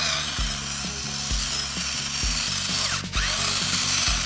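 Salt grinder grinding pink rock salt crystals: a steady grinding with a brief break about three seconds in.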